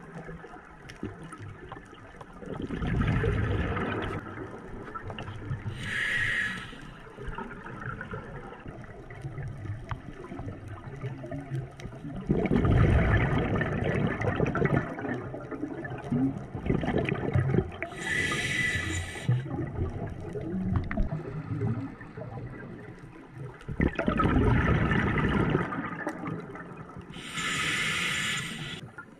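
Scuba diver breathing through a regulator underwater: short hissing inhalations alternate with longer rumbling bursts of exhaled bubbles, three breaths in all, about ten seconds apart.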